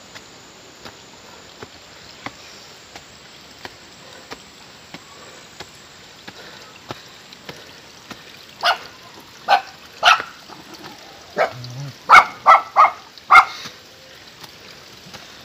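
A dog barking: about eight short, loud barks in a run about halfway through, a few of them quickly one after another near the end of the run.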